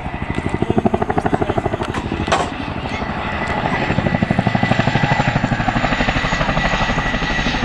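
Boeing CH-47 Chinook tandem-rotor helicopter flying past, its two rotors giving a fast, even beat over a thin steady turbine whine.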